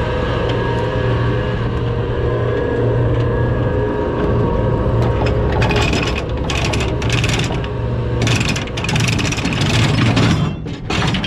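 Boat's anchor being hauled in by its winch: a steady low mechanical hum, joined about halfway through by a rattling clatter that repeats about twice a second and stops near the end.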